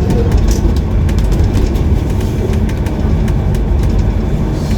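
Tour bus riding through city traffic: a steady low engine and road rumble, with frequent light clicks and rattles throughout.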